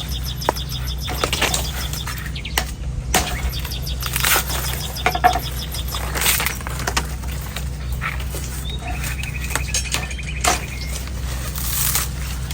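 Sharp knife hacking into the hard, dry husk of an old coconut in irregular sharp cuts, with birds chirping, one in a rapid trill about nine seconds in, over a steady low hum.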